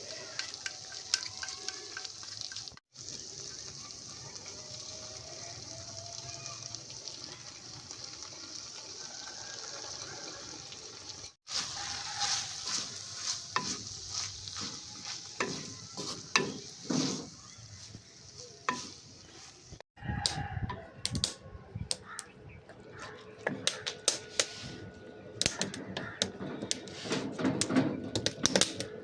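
Food frying in a pan: a steady sizzle, with many sharp clicks and knocks from a utensil working in the pan, broken by three abrupt cuts.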